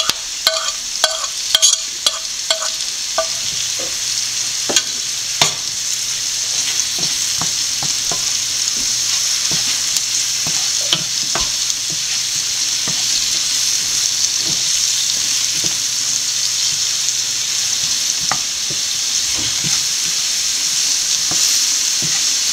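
Onions and capsicum sizzling in oil in a white ceramic-coated frying pan as chilli powder is stirred in with a wooden spoon, the spoon scraping and knocking against the pan. A quick run of light clicks in the first three seconds, then a steady sizzle with scattered knocks.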